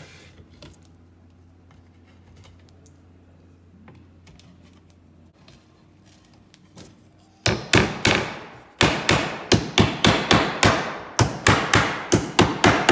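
Hammer pounding steel T-nuts into the holes of cedar chair-leg boards: quiet handling at first, then from about halfway a quick run of sharp strikes, about four a second.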